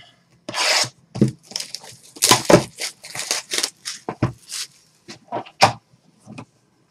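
Trading-card pack or box wrapping crinkling and tearing in a run of quick, irregular rips as it is torn open.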